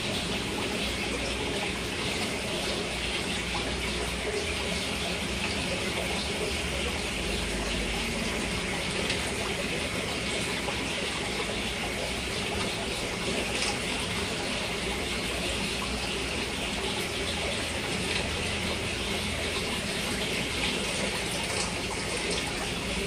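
Steady rush of running water from an aquarium's filtration, an even hiss-like gush that holds without a break.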